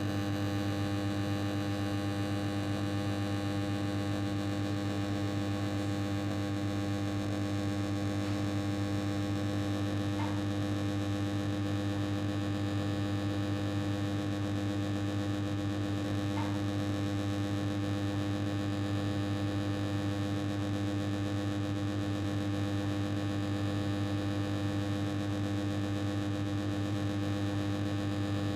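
Old, faulty air conditioner running: a steady electrical hum with several overtones over a constant hiss of noise, with a couple of faint clicks.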